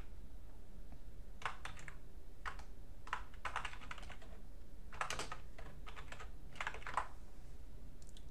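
Computer keyboard typing: several short runs of keystrokes over about six seconds, the last of them near the end, as a terminal command is keyed in.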